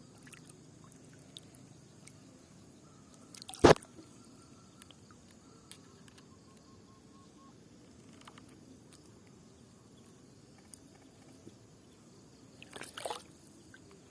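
One loud, sharp knock or splash about four seconds in, and a shorter, softer burst of noise near the end, over faint steady background.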